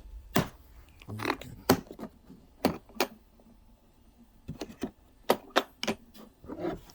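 Irregular sharp clicks and knocks of hard objects being handled, about a dozen in all, with a quieter stretch in the middle.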